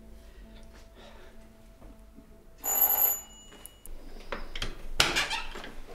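Doorbell ringing once, a short bright ring about two and a half seconds in with a high tone that lingers for about a second. About two seconds later comes a louder clatter.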